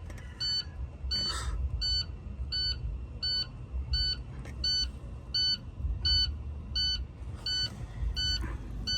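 Electronic beeper sounding short, evenly spaced beeps, about one every 0.7 seconds, over a low, uneven rumble.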